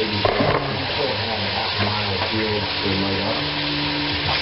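Steady sizzle of cooking oil frying in a pan. A brief clatter comes about half a second in, and faint held tones sit underneath.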